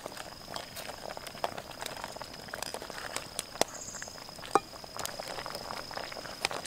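Whole boiled eggs and tomato wedges being put into a pan of curry: a few scattered clicks and soft knocks, the loudest about four and a half seconds in, over a low sizzle and a steady high thin hum.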